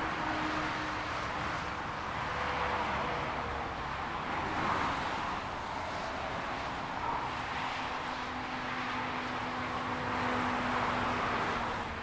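Continuous German autobahn traffic: the tyre and engine noise of cars and lorries on a multi-lane motorway, swelling several times as vehicles pass close by, with a faint low hum from one vehicle late on.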